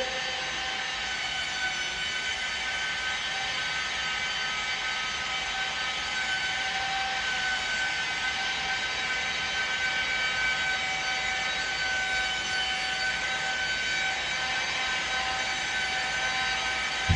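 Electric glass-buffing machine running steadily with a constant whine, polishing a scratch out of glass.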